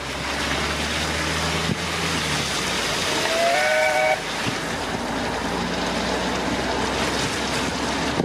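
Chime steam whistle of the NGG16 Garratt locomotive NG.87 blown once for about a second, several notes together with a slight upward slide at the start, over a steady rushing noise of wind and a moving car.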